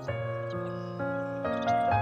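Instrumental background music, with held notes and chords changing about twice a second.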